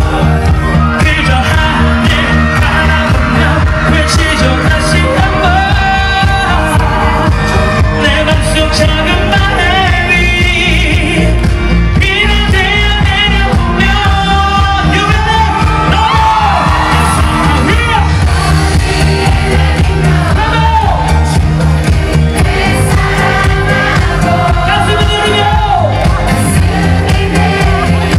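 Male singer singing a pop ballad live into a microphone over a loud amplified backing track with heavy bass, heard through the PA from within the audience.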